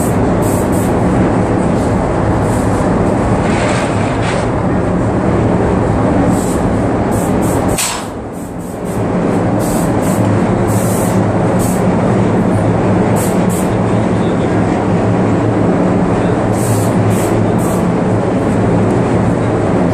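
Airless paint spraying in a spray booth: a steady, loud mechanical rumble with a low hum, broken now and then by short high hisses. It dips briefly quieter about eight seconds in.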